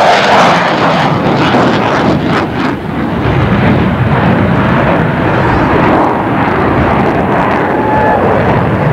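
Loud jet roar from a Grumman F-14B Tomcat's two General Electric F110 turbofans as it flies past. About three seconds in the roar turns deeper as the jet flies away.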